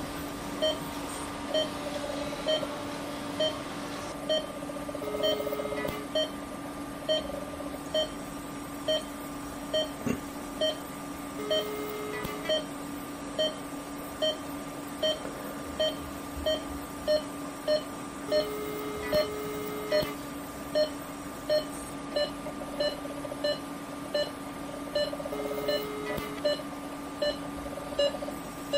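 Patient monitor beeping with the pulse, short even beeps about one and a half times a second, over a steady electrical hum. A longer, lower tone sounds for about a second four times, several seconds apart.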